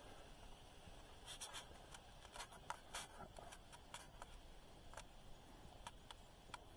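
Faint scattered clicks and taps over a quiet background, like handling noise from a small device being held or worked with the fingers.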